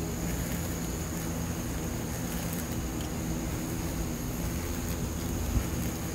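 Steady drone of insect wings buzzing: Asian giant hornets beating their wings as they are caught on sticky trap paper. One short tap about five and a half seconds in.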